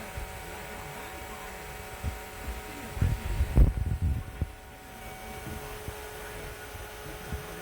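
Small portable evaporative air cooler's fan motor running with a steady hum of several fixed tones. Low knocks and rumbles break in about three seconds in and last for a second or so.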